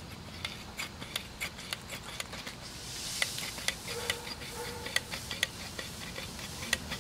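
Hand caulking gun clicking as its trigger is squeezed over and over, pushing asphalt crack filler out of the tube: sharp, irregular clicks, a few each second.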